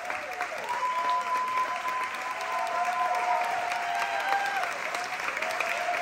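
Audience applauding steadily, with several long held tones sliding down at their ends above the clapping.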